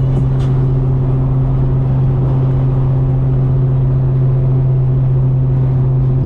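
Infiniti G37 sedan's 3.7-litre V6 droning at a steady pitch while cruising at highway speed, heard inside the cabin along with road and tyre noise.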